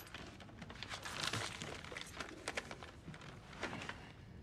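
A sheet of paper rustling, with scattered soft clicks and taps, as a letter is handled and unfolded.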